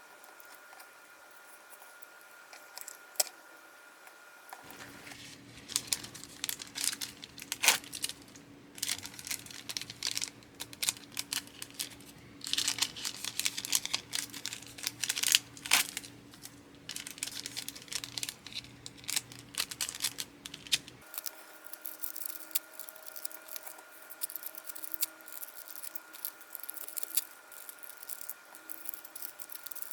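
Packaging being handled as orders are packed by hand: crinkling and tearing of wrapping material, with many small clicks and taps, busiest in the middle.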